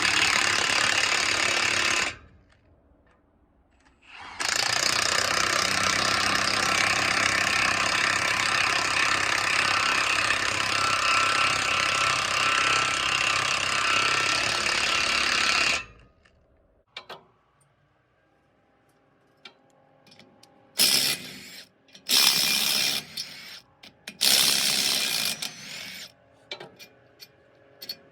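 Cordless impact wrench hammering on the knife bolts of a wood chipper's drum. It runs in a short spell and then one long run of about twelve seconds, followed near the end by several short bursts.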